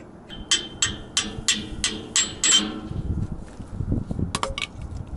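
A hammer striking metal, about eight ringing blows in quick succession, roughly three a second, then a low rumble and two sharp clicks.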